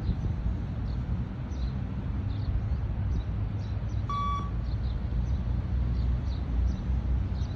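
A single short electronic beep from a beep-test (multi-stage shuttle run) recording, about four seconds in, marking the end of one shuttle. A steady low rumble runs underneath.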